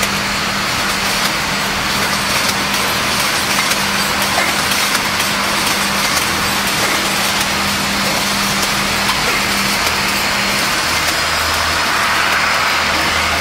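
Aerosol can making line machinery running: a steady, loud mechanical din with faint scattered clicks, over a steady hum that gives way to a lower hum near the end.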